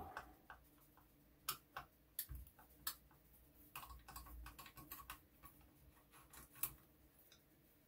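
Faint, irregular small clicks and taps of a screwdriver and hands working at the screws of a wooden air-rifle stock.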